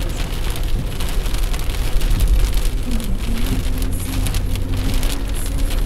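Heavy rain falling steadily, with many drops pattering, over a steady low rumble.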